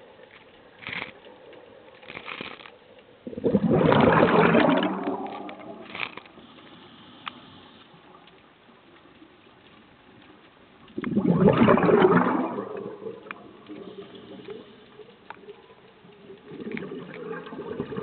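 Scuba diver exhaling through the regulator: two loud rushes of bubbles, about four and twelve seconds in, with quieter bubbling between.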